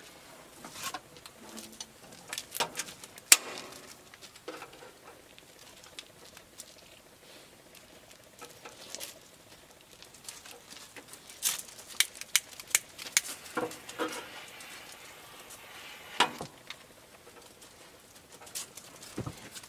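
Scattered sharp clicks and metal knocks from a portable single-burner gas stove as it is handled and lit, including a quick run of several clicks from its igniter. The stove runs on biogas.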